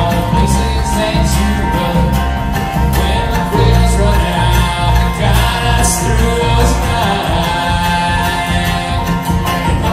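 Live bluegrass band playing: banjo, acoustic guitar, mandolin and upright bass together, over a steady plucked bass line.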